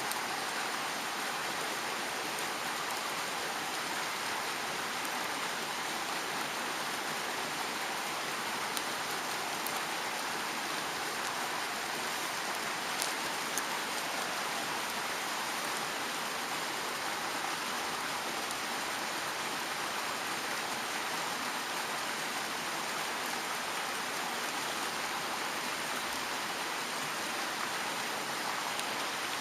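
Mountain stream rushing steadily, with a few faint clicks.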